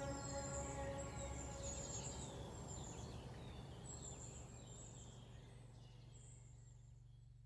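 Birdsong with many short chirps over a steady low hum, slowly fading out at the end of an ambient track; held musical tones die away in the first second.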